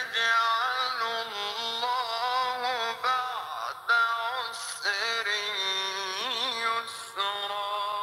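A single voice chanting a long, ornamented melody that wavers and curls in pitch, with a few short breaks.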